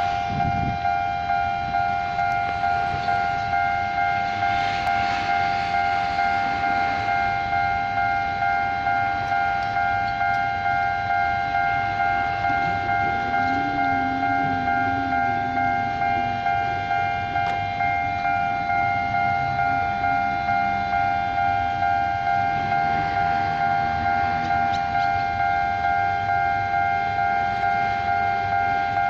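Level-crossing warning alarm sounding: a steady electronic bell tone repeating in quick even pulses, the signal that a train is approaching the crossing.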